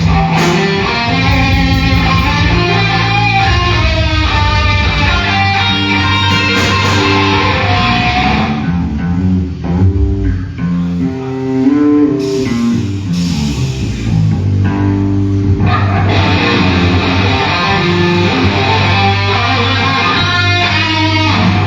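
Electric guitar and bass guitar playing loudly through an amplified sound system during a band's sound check; the treble thins out for several seconds in the middle while the bass carries on.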